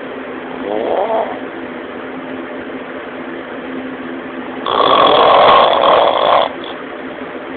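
A man snoring in his sleep: one loud snore lasting about two seconds a little past halfway, with a brief rising sound about a second in. A steady hum runs underneath.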